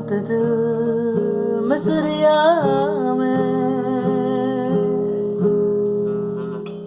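Acoustic guitar playing the song's closing phrase, with a short wordless sung run about two seconds in; the final notes then ring on and fade away.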